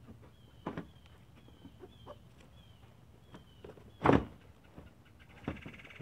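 A replacement headlamp assembly knocking and bumping against the car's front end as it is worked into its opening, with one loud thunk about four seconds in. Faint chirps repeat in the background.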